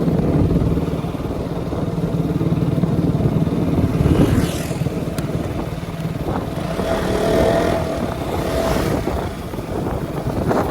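Motorcycle engine running steadily while riding, under a haze of road and wind noise, swelling in level about four seconds in and again a few seconds later.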